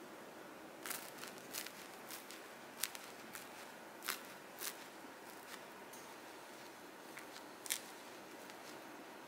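Crust of a baked mini baguette crackling as a gloved hand squeezes it: an irregular scatter of sharp little crackles over several seconds.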